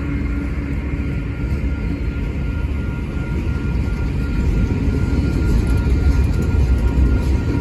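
Freight train passing close by: the trailing diesel locomotive's engine drone fades out in the first couple of seconds, then freight cars roll past with a steady rumble of wheels on the rails and a faint steady high whine.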